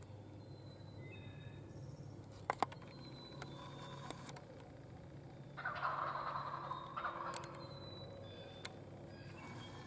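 A wild turkey gobbling once, a rough rolling call of about a second and a half, just past halfway through. Two sharp clicks come earlier, and faint songbird notes sound throughout.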